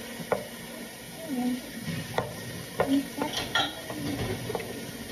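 Wooden spoon stirring soup in a pot on the stove, with irregular knocks and short scrapes of the spoon against the pot.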